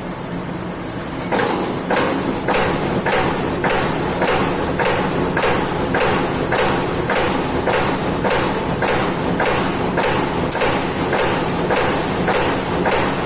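Amada Pega 357 CNC turret punch press punching sheet metal in a steady run of hits, about two a second, starting a little over a second in, over the machine's constant hum.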